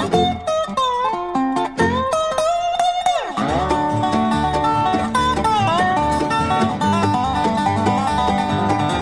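Bluegrass instrumental with a dobro lead playing quick notes and sliding between pitches, including a long downward slide about three seconds in, over banjo, guitar and bass.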